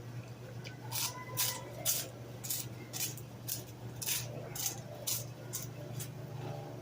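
Crunching of an airy puffed snack being chewed, about two crisp crunches a second, over a steady low hum.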